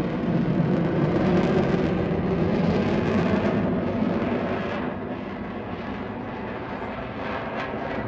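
Military aircraft flying past with a steady engine roar, loudest in the first half and dropping off about five seconds in.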